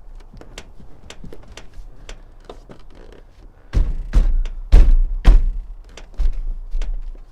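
Repeated thuds and knocks: a 1995 Nissan D21 pickup's steering wheel being worked loose from its steering shaft. There are light knocks at first, then four heavy thuds close together in the middle and a few lighter ones after.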